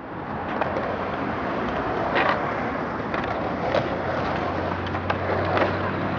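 Skateboard with quick-release wheels rolling on pavement: a steady rumble of the wheels, with a few sharp clicks along the way.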